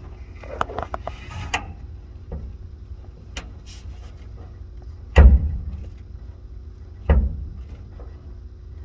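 Hood of a 1958 Chevrolet Apache being pushed down on aftermarket billet hinges: a few light metallic clicks, then two heavy clunks about two seconds apart. The hinges bind on themselves and keep the hood from closing any further.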